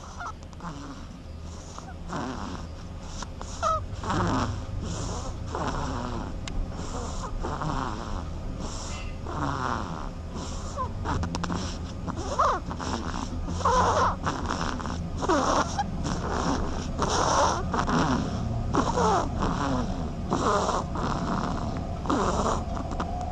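A duckling snoring: soft, rhythmic breathy rasps about once a second, with faint falling whistly notes between breaths and a steady low hum underneath.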